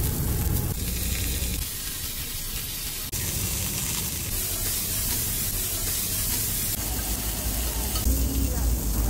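Pork belly sizzling as it fries on a hot shovel griddle, the sizzle changing abruptly a few times from one shot to the next.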